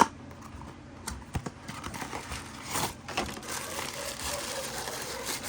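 Plastic toy wrapper being opened and crinkled by hand: a sharp click, then scattered ticks and a denser rustling and crackling from about two seconds in.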